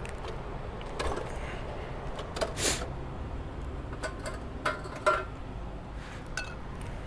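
Scattered light clicks and knocks from hands handling a mini bike's plastic fuel tank and cap, over a faint steady low hum, with one short rushing noise about two and a half seconds in.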